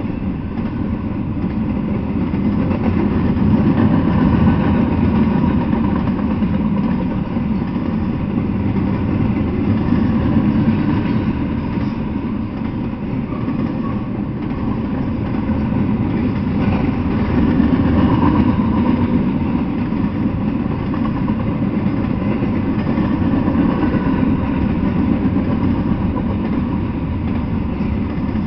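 Double-stack intermodal freight train's loaded container well cars rolling past, a steady rumble of steel wheels on the rails that swells and eases every several seconds.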